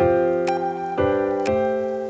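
Background piano music: a chord struck at the start, then new chords about a second in and again half a second later, each left to ring and fade.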